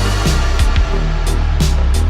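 Electronic background music with a deep, steady bass line and sharp, irregularly spaced drum hits.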